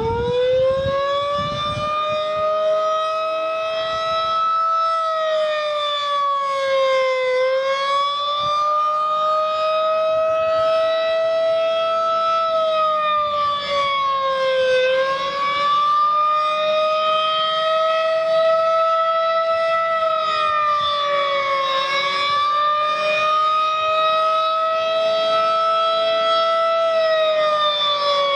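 Federal Signal 2001 rotating outdoor warning siren sounding a steady alert tone, finishing its wind-up to full pitch in the first couple of seconds, then holding one tone that dips slightly in pitch and comes back about every seven and a half seconds as the horn turns. It is a unit the uploader calls by far the quietest 2001 he has heard, too weak to blow the snow out of its horn.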